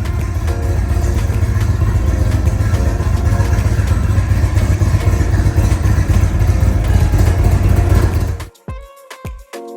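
Indian Chieftain Elite's Thunder Stroke 116 V-twin engine running with a steady low rumble, over background music. The engine sound stops abruptly about eight and a half seconds in, leaving only the music with its drum beats.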